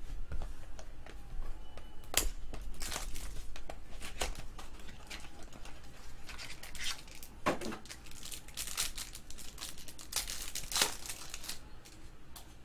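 Plastic card packaging crinkling and tearing as trading cards are unwrapped, in irregular crackly bursts.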